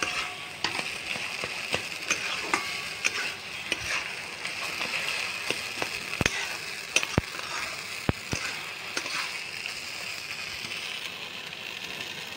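Thick cooked taro-leaf (kochu shak) mash sizzling in a pan over the flame as it is stirred with a metal spatula, with a few sharp clicks of the spatula against the pan around the middle.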